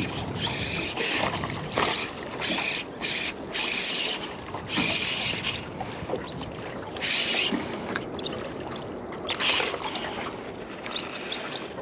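Small waves lapping and slapping against the hull of a small boat, in irregular splashy surges.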